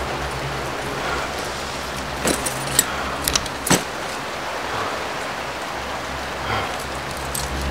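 Steady hiss of rain, with a few sharp clicks and knocks about two to four seconds in.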